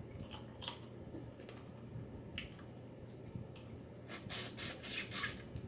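Close-up eating of a shrimp and snow crab seafood boil: a few scattered mouth clicks, then a run of four or five sharp, crackling wet smacks about four seconds in.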